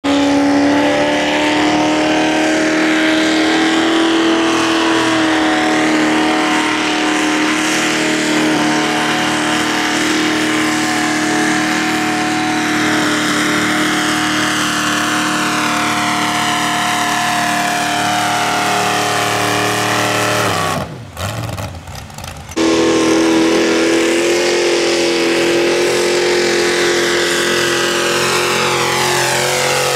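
Modified pulling tractor's engine running at full throttle under load while dragging a weight sled: a loud, steady high-revving note. About two-thirds of the way through it drops away for a second or so, then comes back just as loud.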